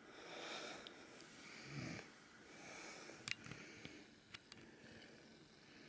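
Near silence: faint breathing close to the microphone, with a few short, soft clicks from handling.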